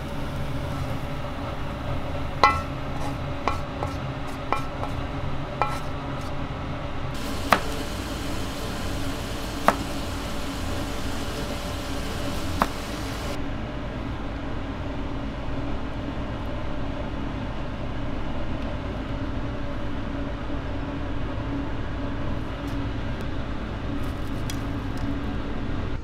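Sharp metallic clinks of a spatula knocking on a wok as fried rice is scraped onto a plate, about seven over the first half, over a steady kitchen hum.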